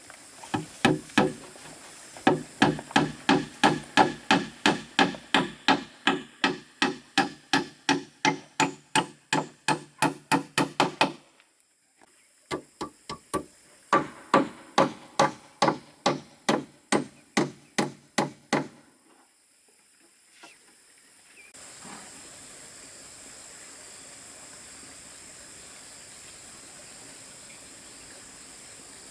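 Hammer driving nails into wood, struck in quick even blows of about three a second, in two long runs with a short break between them. The hammering stops about two-thirds of the way through, leaving a steady low hiss.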